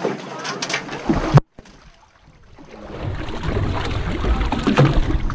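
Wind noise buffeting an action camera's microphone aboard a boat at sea, with the wash of the water around the hull. The sound drops out abruptly about a second and a half in, then builds back to a low, strong rumble with a few knocks.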